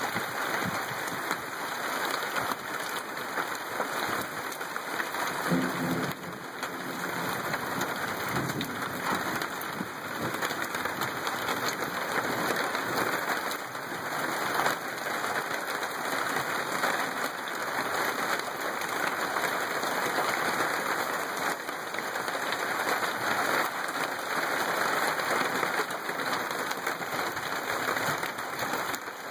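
Rain falling steadily, a dense, even hiss with no let-up.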